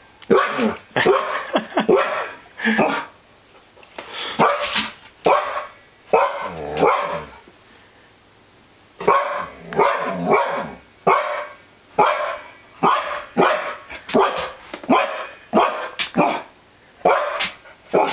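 Husky barking over and over in alarm at an unfamiliar elk mount, in uneven clusters, then after a pause of a second or two about halfway, barking about twice a second.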